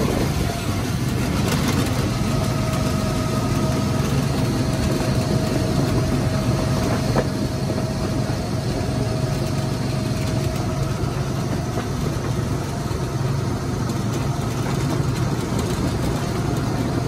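Go-kart engine running steadily as the kart is driven around the track, with a thin whining tone that holds through the middle and then fades.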